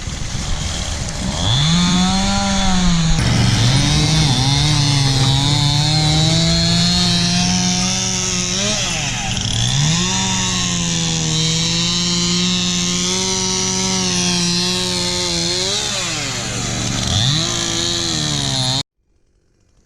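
Two-stroke chainsaw running at high revs and cutting wood, its pitch sagging under load and climbing again a few times. It cuts off abruptly near the end.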